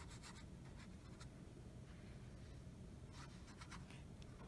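Faint scratchy swishes of a thin paintbrush stroking damp watercolor paper, in a few short clusters of strokes near the start, about a second in, and a little past three seconds.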